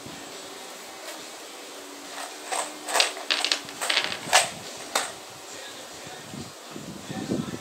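Small metal screws clattering onto a plywood sheet in a series of sharp clicks and short rattles, over a faint steady hum.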